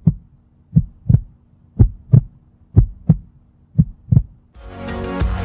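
Heartbeat sound effect: pairs of low thumps, lub-dub, about once a second over a faint steady hum. Music with a beat comes in near the end.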